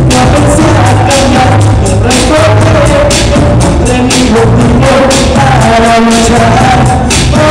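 Loud live music through a stage PA: a singer's voice over a band backing track with a steady drum beat.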